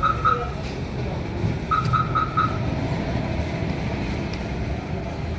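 Runs of short high electronic beeps, about four a second, at the start and again about two seconds in. Under them is a steady low rumble of road traffic.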